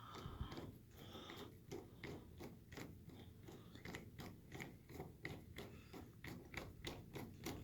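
Flathead screwdriver turning out a Kwikset deadbolt's mounting screw: a run of faint, irregular clicks as the blade works the screw head and the screw backs out of the lock.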